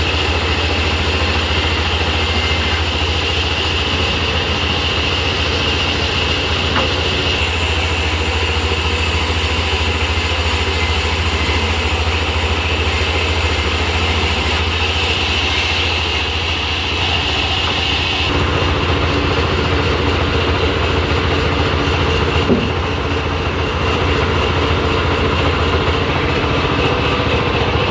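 Sawmill machinery running steadily: a low engine hum with a high whine over it, changing abruptly several times.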